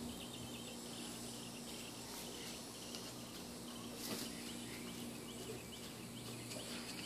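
Faint high-pitched insect chirps, short and repeated, over a low steady hum, with a brief soft rustle about four seconds in.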